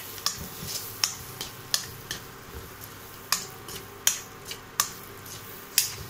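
A spoon scraping and knocking against a stainless steel kadai while stirring frying egg porutu, giving sharp irregular clicks roughly every second over a low sizzle.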